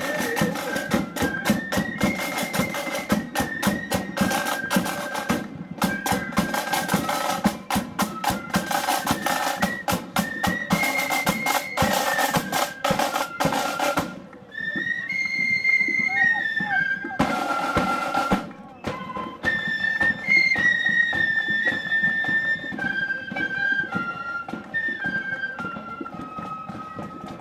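Marching flute band playing a tune on flutes over rapid side-drum beating. About halfway through the drums stop and the flutes play on alone, then a short drum roll and lighter drumming come back under the melody.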